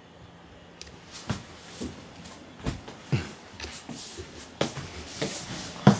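Footsteps and rustling with camera handling knocks as a person gets up and walks across the floor holding the camera. After about a second of quiet room tone, irregular thumps come roughly every half second, the loudest near the end.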